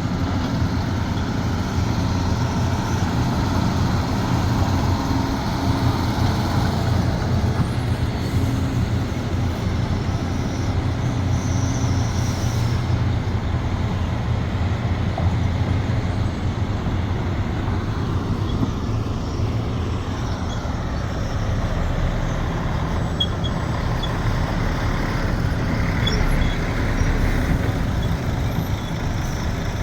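Sumitomo SH370LHD-6 excavator's diesel engine running steadily under working load, a low drone that eases somewhat for a few seconds past the middle.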